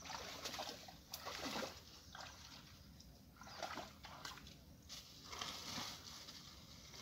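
Water splashing and sloshing in irregular surges about once a second, from people wading in a shallow muddy pond.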